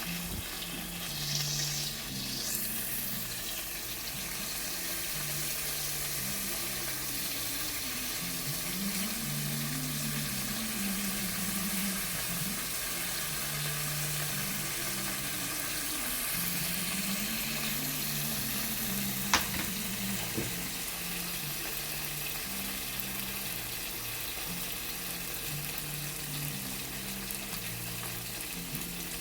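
Food frying in a pan, a steady sizzle, with one sharp click about nineteen seconds in.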